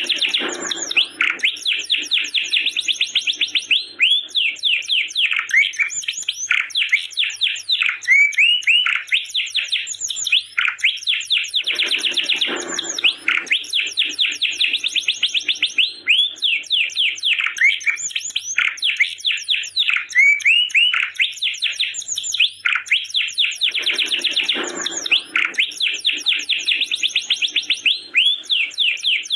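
Domestic canary singing without pause: long runs of rapid trills and quick sweeping chirps, with a deeper rolling phrase returning about every twelve seconds.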